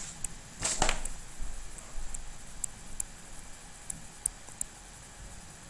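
Scattered light ticks of a stylus tapping and sliding on a writing tablet during handwriting, with a slightly stronger tap under a second in.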